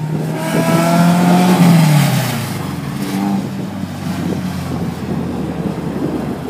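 A car engine revving hard as the car accelerates away, rising in pitch for about a second and a half and then dropping off. Quieter engines of following cars run on after it.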